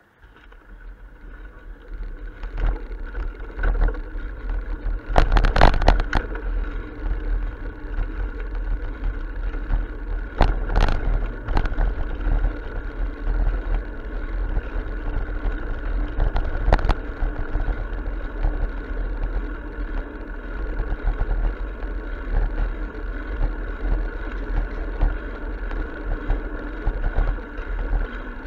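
Wind and road noise on a bicycle-mounted camera as the bike pulls away from a stop and picks up speed: a steady low rumble and rushing hiss that grows over the first few seconds, with a few sharper rattles from bumps, the loudest about five to six seconds in.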